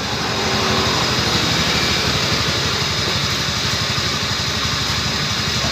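Honda Scoopy scooter's single-cylinder engine idling steadily, with the rough, rasping noise ("kemeresek") heard from the gearbox side. The fault is put down to a worn crankshaft bearing.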